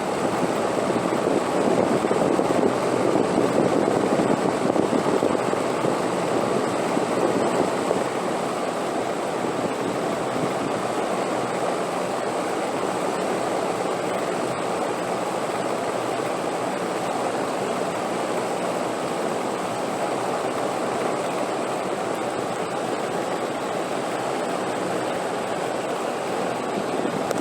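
Steady rushing wind noise, a little louder for the first several seconds, with a faint steady high-pitched whine throughout.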